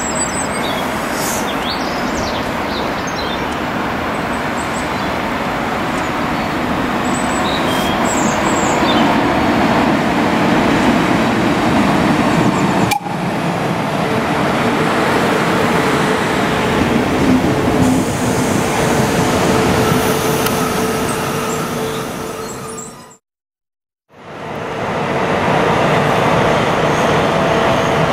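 DB Class 110 electric locomotive hauling a passenger train into a station: a steady rumble of wheels and motors that grows louder over the first ten seconds, later carrying two held tones. After a brief silence near the end, the locomotive stands with a steady hum and held tones. Birds chirp faintly at the start.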